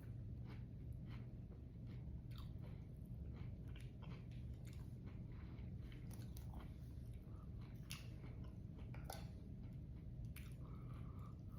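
Close-miked chewing of a mouthful of chamoy pickle with its toppings, with irregular wet crunches and clicks throughout, over a steady low hum.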